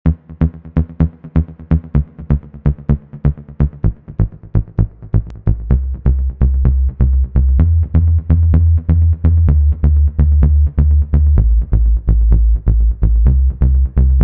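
Electronic dance music made in FL Studio: a steady drum-machine beat with a pitched synth pattern underneath. About five seconds in, a heavy sustained bass comes in and the track gets louder.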